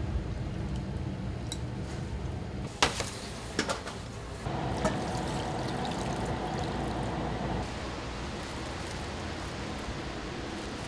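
Liquid being poured in a steady stream for about three seconds, preceded by a few sharp clicks, over a steady low background hum.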